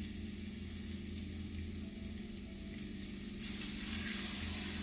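Cornstarch-dredged pork fillet pieces frying in oil in a pan: a steady sizzle that gets louder about three and a half seconds in, as another piece goes into the hot oil.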